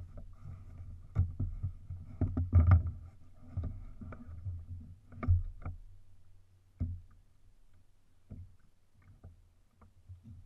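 Irregular thumps and knocks on a plastic fishing kayak as a large striped bass is lifted and handled aboard, the loudest in the first six seconds and only a few single knocks after that, over a steady low rumble.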